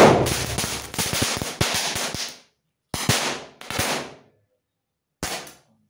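A ring of Diwali firecrackers going off in a rapid string of sharp bangs and crackles. The string stops about two and a half seconds in, and three separate short bursts of popping follow, near three, four and five seconds in.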